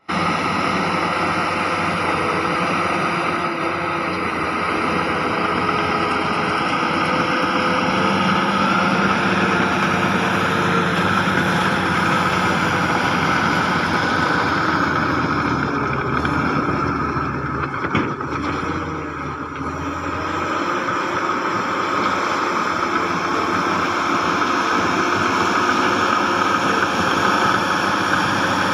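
Heavy earthmoving machinery's diesel engines running steadily, with a single sharp knock about two-thirds of the way through.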